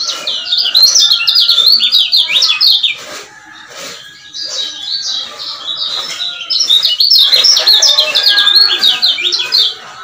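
Male kecial kuning (Lombok yellow white-eye) singing in two long bouts of fast, high chattering notes, with a short break of about a second and a half between them.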